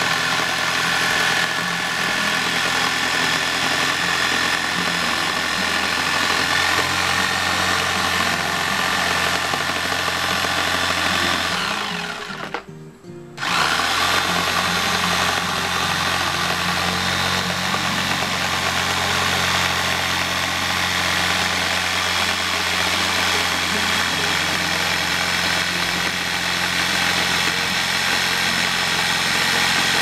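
Electric jigsaw cutting through a car tyre's rubber sidewall, its motor running steadily. It winds down and stops about twelve seconds in, then starts again a second or so later and runs on.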